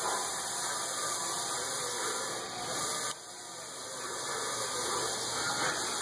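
Steady hiss of background noise, dropping a little in level about three seconds in.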